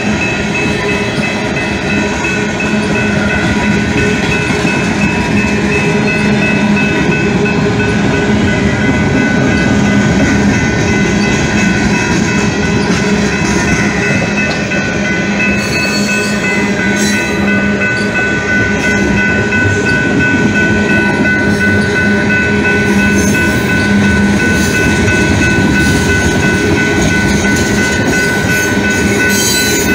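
Freight train of tank cars rolling steadily past at a level crossing, with the continuous rumble and rattle of wheels on rails. Several steady high-pitched tones are held over it throughout.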